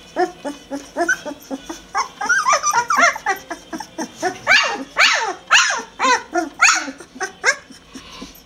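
Bouvier des Flandres puppies yelping and whining in a rapid string of short cries, each falling in pitch. The cries grow louder and higher from about two seconds in.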